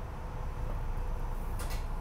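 Steady low rumble inside a SEPTA Regional Rail passenger car, with a faint steady hum and a short high-pitched noise near the end.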